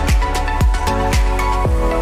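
Music with a heavy, steady beat, about two beats a second, over held chords.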